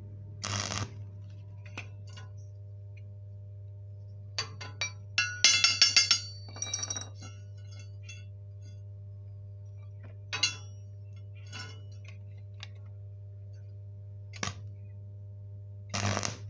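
Steady low hum of the arc welding machine, with a short crackle of the stick electrode's arc about half a second in and again near the end. In between, a chipping hammer taps and rings against the steel square tube, knocking slag off the weld in a quick run of metallic clinks, then a few single taps.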